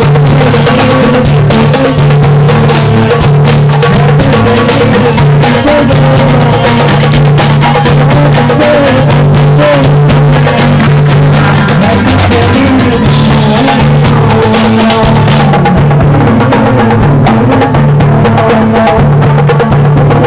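Music with drums and percussion playing steadily, with a melody line over a sustained low bass.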